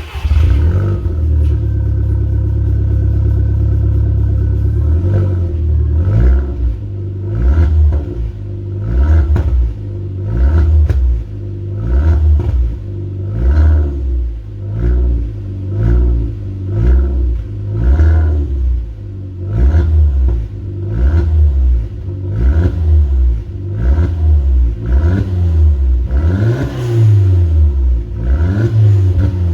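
VW Golf exhaust with a 3-inch stainless turbo-back line and its only muffler gutted: the engine runs steadily for about five seconds, then is blipped over and over, rising and falling in pitch roughly every second and a half.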